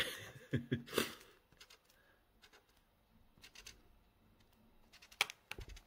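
Black marker dotting seeds onto folded origami paper: scattered short, light taps and scratches of the pen tip on the paper. A sharper click and a low thud come just after five seconds.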